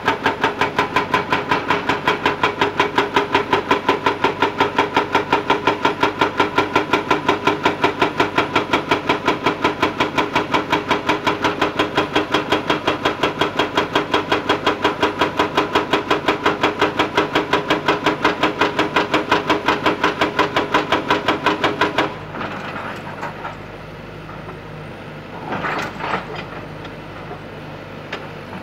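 Hydraulic rock breaker on a Kobelco excavator hammering rock in a fast, even rhythm of about five blows a second. It stops about 22 seconds in. After that the excavator's engine runs on more quietly, with a few knocks.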